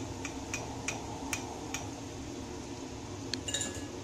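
Light metallic clinks of a metal skewer as fried unniyappam are slid off it, over the steady low hiss of oil frying in the unniyappam pan. A short run of clinks with a brief ringing tone comes about three and a half seconds in.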